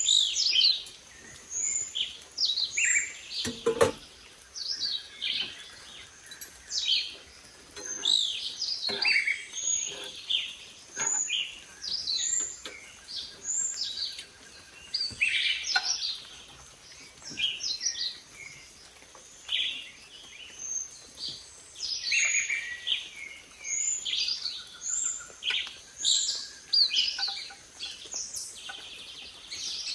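Many birds chirping and calling in short, quick, overlapping notes, with a few sharp knocks of cookware, the loudest about four seconds in.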